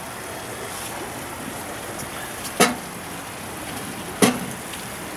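Two sharp clinks of a metal spoon against a cooking pot on a wood stove, about a second and a half apart, over a steady rushing noise.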